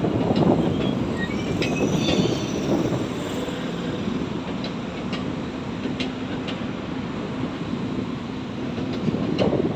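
Tokyu 8500 series electric commuter train running on the track: steady wheel-on-rail noise with a few sharp clicks and a brief faint wheel squeal about two seconds in. No horn sounds.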